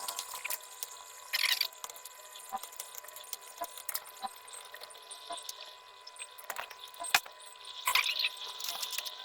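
Light clicks and taps of small hand tools, with a short scrape about one and a half seconds in, a sharp click around seven seconds, and another scrape near the end.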